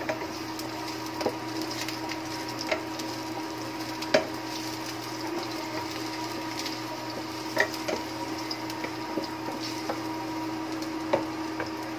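Wooden spatula scraping and knocking against a nonstick pot while stirring ginger strips frying gently in oil, with a soft sizzle. A handful of sharp knocks stand out, and a steady hum runs underneath.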